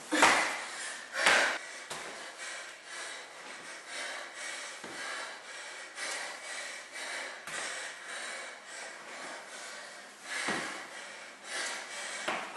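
A woman breathing hard from exertion during a workout: a steady run of quick, noisy breaths. There are louder huffs twice near the start and again about ten seconds in.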